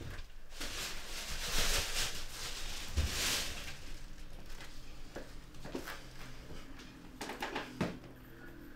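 Rustling and handling sounds as a person moves about a kitchen, followed by a few light knocks and clicks.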